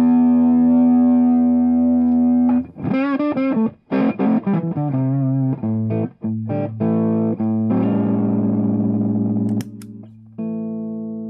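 Electric guitar, a Gibson SG Special with '61 Zebra pickups, played through a BC183 transistor fuzz and boost pedal into a small tweed-style amp: a held fuzzed note rings out, then wavering bent notes, a run of short notes and another long held note. About two-thirds through a footswitch clicks, one of the pedal's two circuits goes off, and the next held note rings on quieter.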